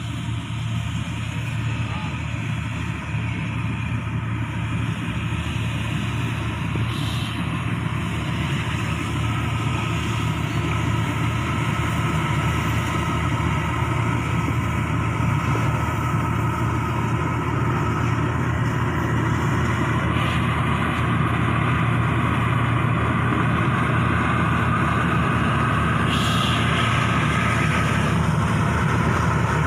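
Inari combine harvester running steadily under way, its engine drone growing gradually louder.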